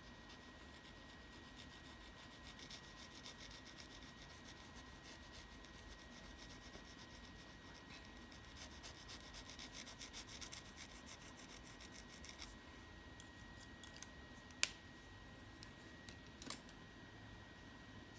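Pen scribbling on paper in quick, faint back-and-forth shading strokes, stopping about twelve seconds in. Two sharp clicks follow a couple of seconds apart.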